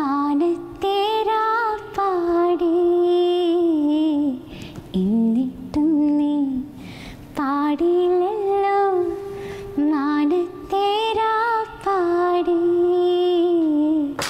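A woman singing a slow melody on her own, holding long wavering notes, phrase after phrase with short breaks for breath between.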